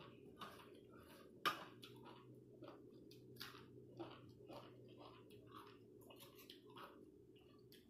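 Faint chewing of a mouthful of spicy rice-noodle salad (tum khao poon), a string of short wet mouth clicks a few times a second, with one sharper click about one and a half seconds in.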